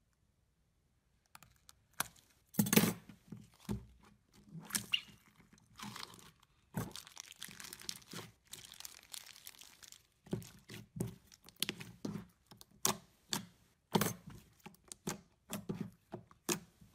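Slime squeezed and kneaded inside a plastic zip bag: irregular plastic crinkling with short squishes and pops, starting about a second in.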